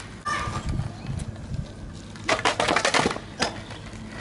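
Stunt scooter wheels rolling on asphalt, then a quick run of metallic clicks and clattering from the scooter a little over two seconds in, with one more click shortly after.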